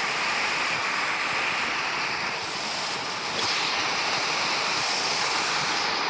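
Heavy rain pouring down and falling hard on a metal roof, a steady rushing noise, with gusting wind.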